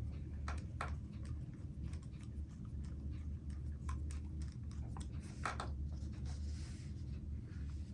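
A few scattered small clicks and scrapes of screws and small plastic parts being handled and fitted by hand, over a steady low hum.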